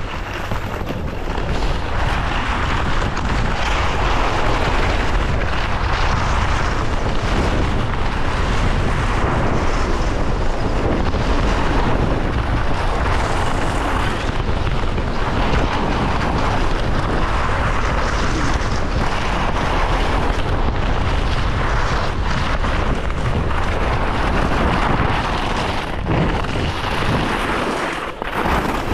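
Wind buffeting the camera microphone at speed, mixed with skis carving and scraping over packed snow. The hiss swells every couple of seconds with each turn.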